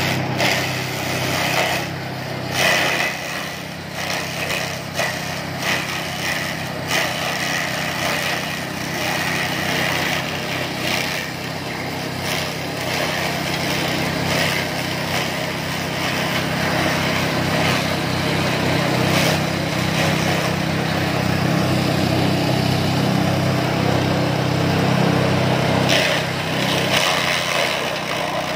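Motor-driven grass chopper (chaff cutter) running steadily while bundles of grass stalks are fed into it. The spinning blades chop the stalks, adding irregular noisy bursts over the steady machine hum, most uneven in the first few seconds.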